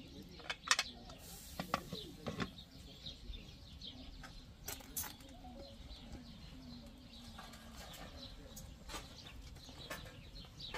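Outdoor rural ambience with birds chirping and a dove cooing. A few sharp clicks and clinks come in the first couple of seconds and again around the middle.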